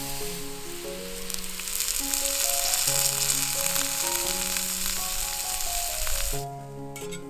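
Food sizzling in a hot skillet, a steady hiss that grows louder about two seconds in and cuts off suddenly about six seconds in, with background music.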